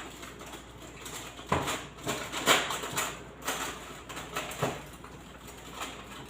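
Rummaging through kitchen things while hunting for a straw: a series of scattered knocks and rattles, the loudest about two and a half seconds in.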